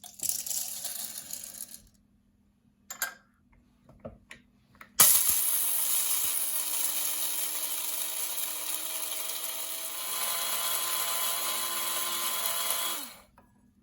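KRUPS F203 electric blade coffee and spice grinder grinding whole black peppercorns: after a short noise and two clicks, the motor starts about five seconds in and runs for about eight seconds with a steady hum that rises slightly in pitch, getting louder about two-thirds of the way through, then stops and winds down.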